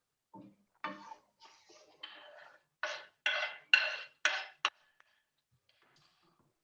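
A person's voice making a run of about eight short, breathy bursts that grow louder over a few seconds, then stop.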